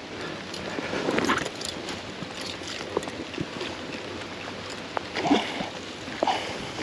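River water splashing in short bursts, once about a second in and twice near the end, the second-to-last the loudest, over a steady patter of rain.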